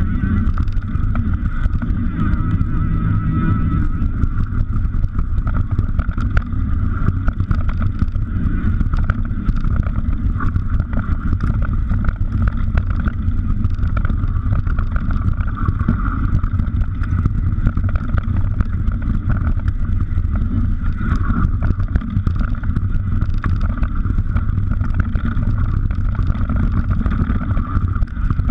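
Wind buffeting the microphone of a mountain bike camera speeding down a dirt trail, a heavy steady rumble with the tyres and bike rattling over the ground and many small knocks and clicks.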